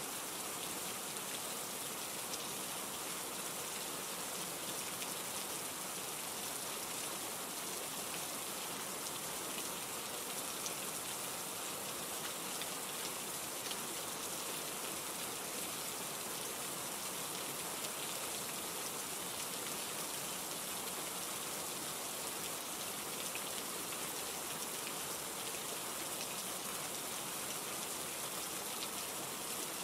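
Steady rain falling, an even hiss with the occasional faint drop tick.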